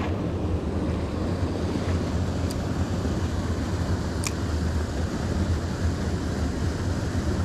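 Steady rushing noise of water pouring over a small weir, mixed with a low wind rumble on the microphone. Two faint ticks sound about two and a half and four seconds in.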